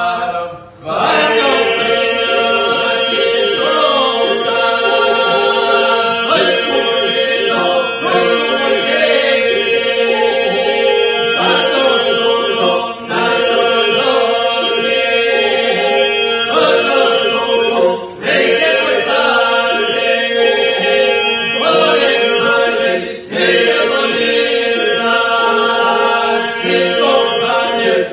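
Men's group singing Labërian iso-polyphony: a steady drone held under solo voices that rise, bend and break off in turn, with short pauses for breath about 13, 18 and 23 seconds in.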